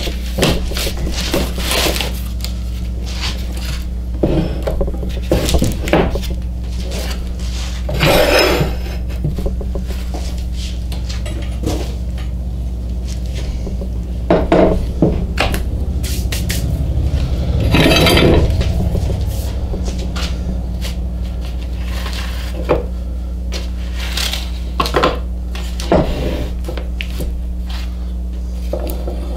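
Small end-grain oak blocks knocking and clacking against each other and the bench as they are set in rows, with metallic clinks from steel pipe clamps being positioned. Scattered knocks every second or two, with longer rattling handling around eight and eighteen seconds in, over a steady low hum.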